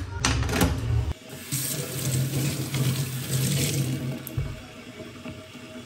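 A few knocks of metal pan grates set down on a glass gas cooktop, then tap water running into a stainless-steel sink, fading after a few seconds.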